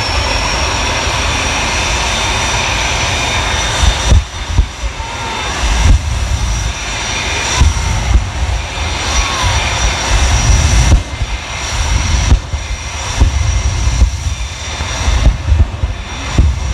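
Jet engine of a monster fire truck running with a steady high whine and roar. From about four seconds in it surges in repeated bursts as it blasts flame onto a car.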